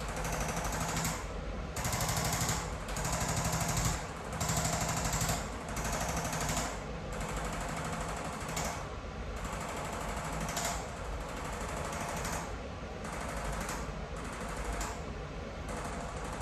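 Electric percussion massager running: rapid hammering over a steady motor hum, its sound shifting every second or so as it is pressed and moved over the muscles.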